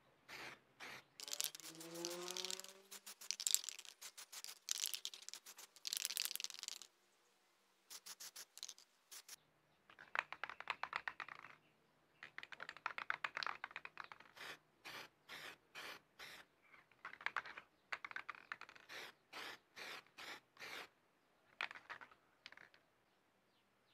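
Aerosol spray-paint can hissing in bursts as black paint goes on for a third coat, between runs of quick rattling clicks from the can's mixing ball as it is shaken.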